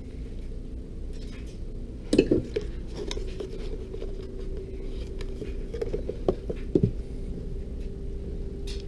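Handling clatter of tools and parts at a workbench: a cluster of hard knocks and clunks about two seconds in, the loudest moment, and two more a little after the middle, over a steady low hum.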